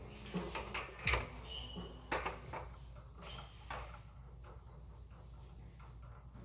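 A few light clicks and knocks of metal parts being handled at a vertical milling machine, over a steady low hum; the clicks fall in the first four seconds, then only the hum.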